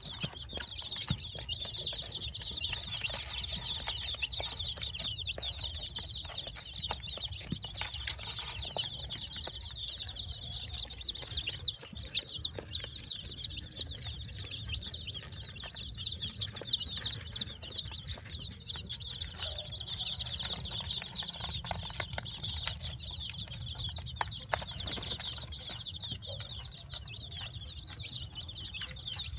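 A brood of baby chicks peeping continuously: many short, high chirps that each fall in pitch, overlapping into a dense chatter that swells for a few seconds near the middle.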